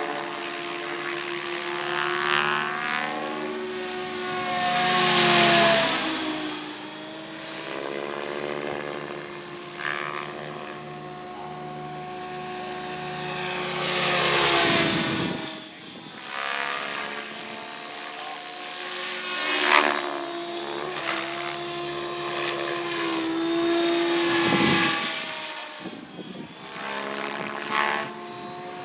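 Radio-controlled model helicopter flying: a steady motor and rotor whine under the rotor blades thrashing the air. The thrashing swells and fades several times as the helicopter passes close to the microphone, loudest about five seconds in and again near the middle and toward the end.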